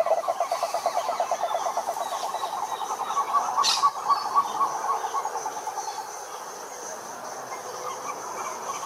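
Frogs calling in a rapid pulsed trill that fades away over the first six seconds, with a second, higher-pitched pulsed call joining for a couple of seconds in the middle, over a steady high-pitched hum.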